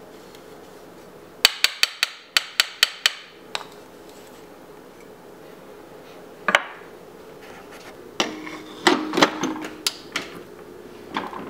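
Sharp metal-on-metal taps and clanks of an espresso portafilter and tamper: a quick run of about seven taps, a single knock a few seconds later, then a cluster of clanks with a brief ring near the end as the portafilter is handled at the machine.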